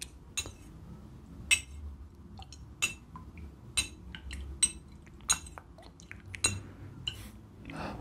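Metal spoon clinking against a ceramic bowl of soup, with sharp ringing clinks coming about once a second.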